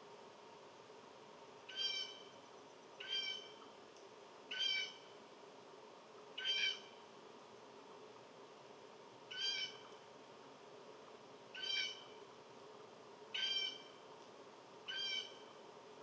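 An animal's short, nasal, mewing call, repeated eight times at about one every one and a half to two seconds.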